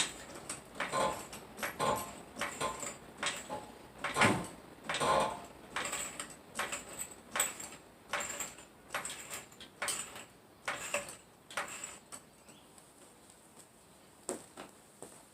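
Car jack being worked to lift the car: a run of irregular metal clicks and clanks, with heavier clunks about four and five seconds in. They thin out after about twelve seconds.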